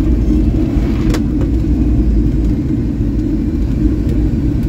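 Cabin noise of a Boeing 757-200 rolling along the runway after landing: a steady low rumble from the wheels and engines, with a single click about a second in.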